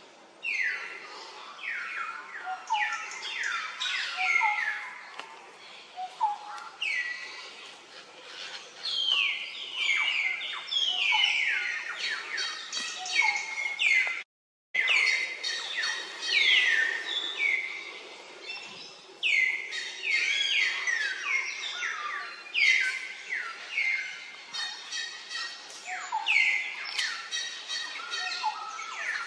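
Many short, high-pitched animal calls, each sliding downward in pitch, repeated and overlapping throughout. The sound drops out for about half a second about halfway through.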